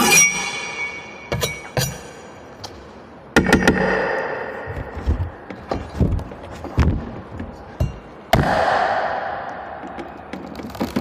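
A blade chopping into a coconut: a ringing metallic strike at the start, then irregular sharp chops and knocks, with two heavier blows about three and a half and eight seconds in, each trailing off in a brief rushing decay.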